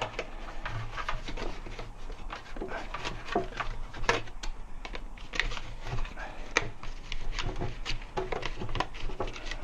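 Irregular clicks and knocks of metal tire spoons and rim protectors against a motorcycle wheel rim as the tire bead is levered over the rim by hand.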